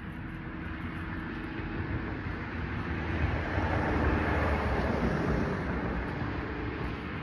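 An SUV driving past, its tyre and engine noise swelling to a peak about four seconds in and then fading away.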